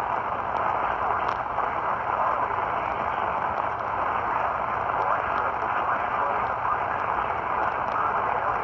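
Steady radio static: an even hiss with faint scattered crackles from a receiver with no broadcast coming through.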